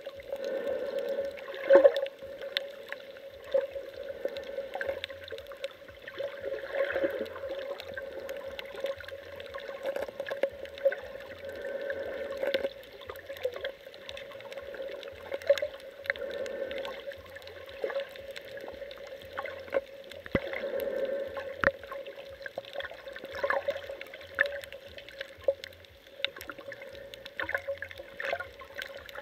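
Water heard by an underwater camera while snorkeling: gurgling and sloshing that swells every few seconds, over a steady hum, with scattered sharp clicks.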